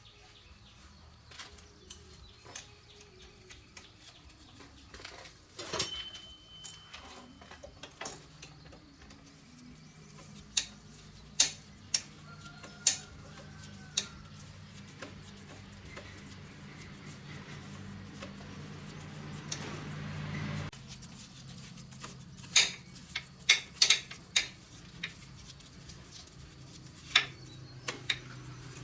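Sharp metallic clinks and knocks of tools and metal parts being handled, coming singly and in quick clusters. Beneath them a low hum builds and cuts off suddenly about two-thirds of the way through.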